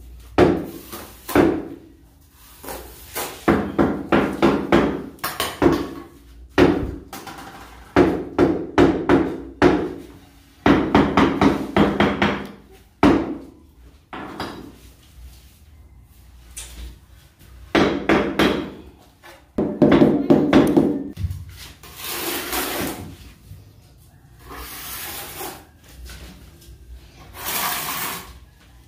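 Trowel scraping, slapping and knocking on wet cement mortar as a tile bed is spread and combed on a concrete floor, in irregular strokes with pauses between. A large ceramic floor tile is then set down on the bed.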